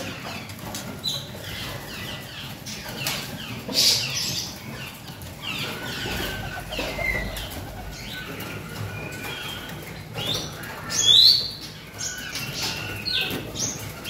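Caged songbirds chirping and calling in short rising and falling whistled notes, with wings flapping as a red-whiskered bulbul flutters across its cage. A louder high call comes about eleven seconds in.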